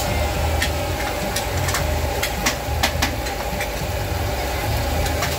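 Battered bergedil deep-frying in a wok of hot oil: a dozen or so sharp, irregular pops and crackles from the oil, over a steady low engine-like drone.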